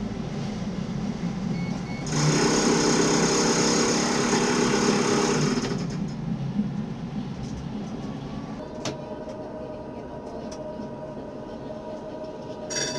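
Tram running along its track, with its warning bell ringing as a continuous rapid trill for about four seconds near the middle, well above the running noise.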